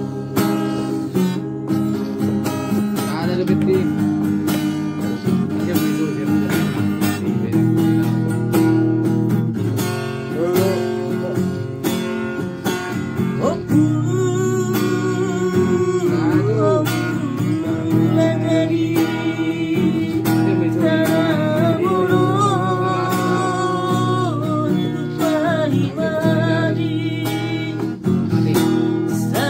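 Classical guitar strummed in steady chords, with a man singing along, his voice clearest from about halfway through.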